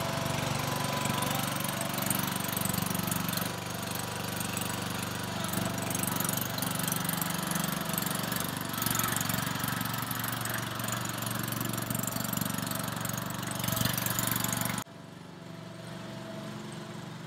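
Small petrol engine of a Scorpion Mk.3 paintball mini tank running with a steady note. About fifteen seconds in, the sound drops suddenly to a much quieter level.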